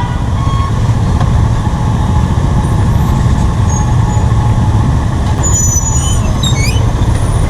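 Steady low rumble of a moving vehicle in city road traffic. A few short high squeaks come about three-quarters of the way in.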